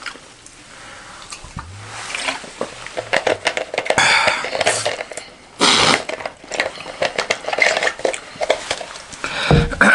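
Plastic Coca-Cola bottle being handled and its cap twisted: crackling of the plastic and small clicks, with louder hissing crackles about four and about six seconds in.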